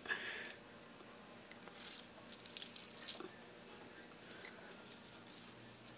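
Faint rustling and scattered small ticks as parmesan shake-and-bake crumb coating is sprinkled by a gloved hand onto pork chops in a foil-lined pan.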